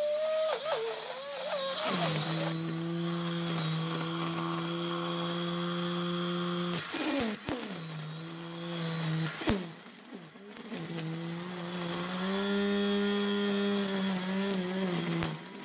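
High-current DC motor spinning a fishing-line cutter on an RC excavator's arm, mowing grass. It gives a steady motor whine that stops briefly twice and then comes back a little higher in pitch.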